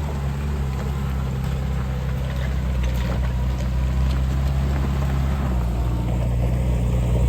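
Car engine running nearby with a steady low hum, growing a little louder near the end.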